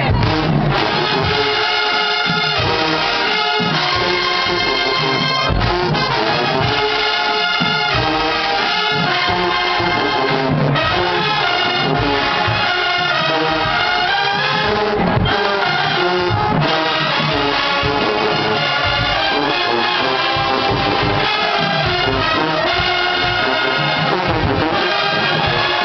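Large HBCU marching band's brass section playing a tune in the stands, with a steady drum beat under it; the music is loud and unbroken throughout.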